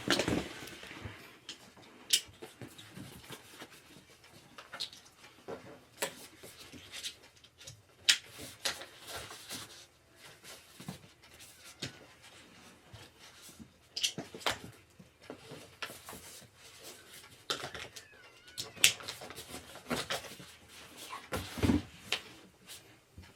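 Scattered clicks and knocks of gaming chair parts being handled during assembly, with a short wavering squeal near the end.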